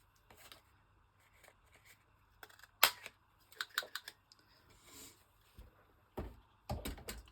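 Handheld corner punch snapping through paper corners: one sharp click about three seconds in, then a few quicker clicks, with paper handling and low knocks on the desk near the end.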